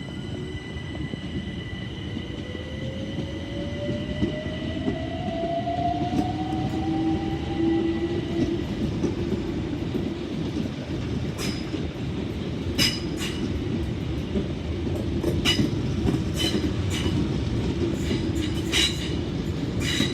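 Southeastern class 376 electric multiple unit pulling out, its traction motor whine climbing steadily in pitch over the first eight seconds or so. From about eleven seconds in, the wheels click sharply and repeatedly over the rail joints as the train passes.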